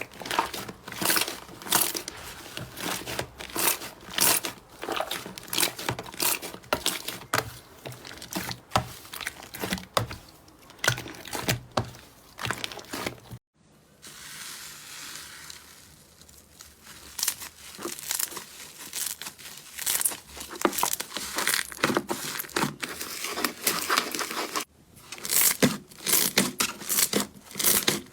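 Slime being squeezed and pulled by hands, giving a dense run of crackles and tearing sounds. It breaks off suddenly about thirteen seconds in, then starts again quieter and builds back up to a thick crackle.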